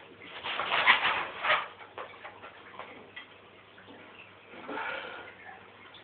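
Animal noises from a dog and a cat squaring off: a loud, noisy burst about half a second in that lasts about a second, with short clicks in it, then a quieter one near five seconds.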